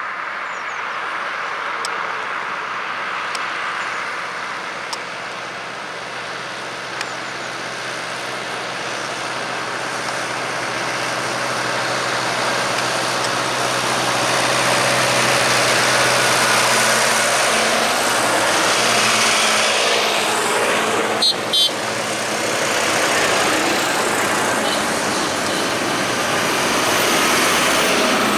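A procession of tractors, a vintage Fordson among modern tractors, driving past on a road with their diesel engines running steadily. The sound grows louder as the bigger machines come by. Two short, sharp blips sound about twenty-one seconds in.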